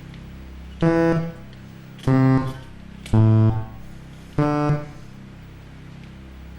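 Game-show button notes: four single electronic musical notes, each about half a second long and each at a different pitch, sounding about a second apart as a five-note sequence is repeated by button presses. A low steady hum runs underneath.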